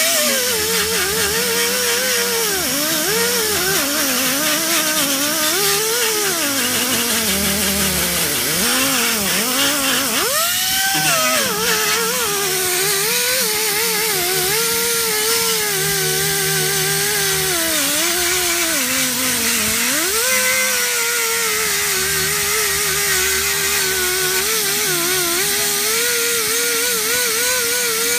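Ingersoll Rand air die grinder spinning a 3M Roloc plastic-bristle disc against painted, rusty sheet steel, stripping it to bare metal. Its whine wavers in pitch as the disc is pressed into the work and jumps up sharply twice, about a third and two-thirds of the way in.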